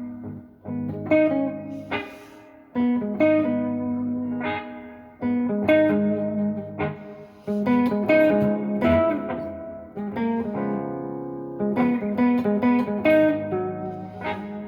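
Electric guitar, a Gibson SG Special on its neck pickup, playing a slow blues lead in phrases of picked, sustaining notes through a Fender Blues Junior IV tube amp with overdrive, delay and reverb. Lower notes ring on underneath the lead.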